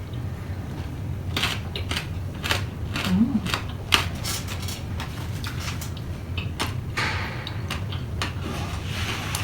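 Close-up eating sounds from a mukbang: chewing with irregular crunches, clicks and smacks, the sharpest about four seconds in, over a steady low hum. A brief low hummed 'mm' comes about three seconds in.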